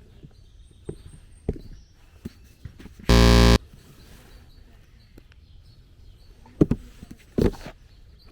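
Footsteps and light knocks, with one loud half-second buzzing beep about three seconds in and two sharper thumps near the end.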